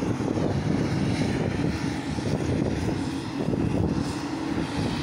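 Heavy farm machinery working the silage harvest, its engine running as a steady low rumble.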